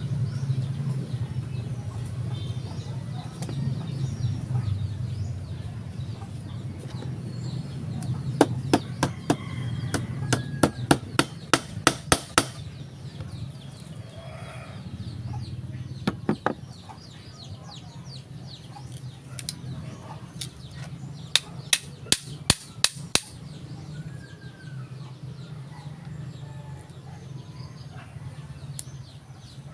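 Two runs of sharp knocks or taps, about a dozen at roughly three a second and later about eight more, over a steady low hum, with chickens clucking in the background.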